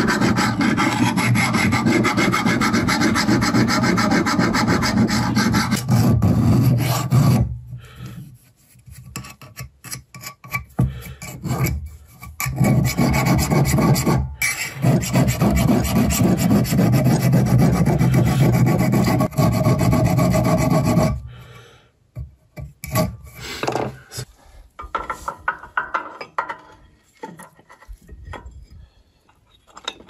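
Steel hand file sharpening a Lumag HC10 woodchipper blade clamped in a bench vise: rapid, steady rasping strokes of metal on metal. The filing stops for a few seconds about a quarter of the way in, resumes, then thins out to scattered, fainter strokes over the last third.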